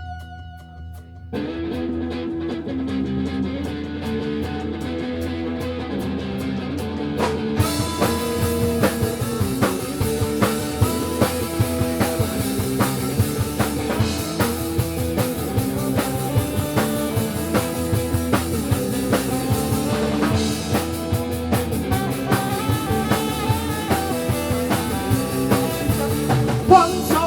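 Live space-rock band playing an instrumental intro. A synth drone with ticking percussion gives way about a second in to a repeating bass and guitar riff, and the full drum kit with cymbals crashes in about seven seconds in.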